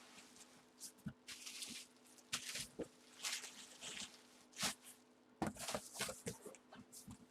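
Packaging rustling and crinkling in short irregular bursts as a boxed helmet is unwrapped.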